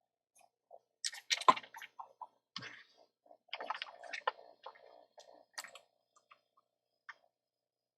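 Irregular clicks, taps and scrapes of small tools being handled and set down on a workbench, loudest about one and a half seconds in, with a busier clatter in the middle.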